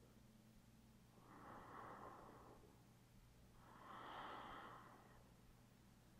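A person's slow, audible breaths, two soft breath sounds of about a second and a half each, while holding a reclined yoga hip stretch.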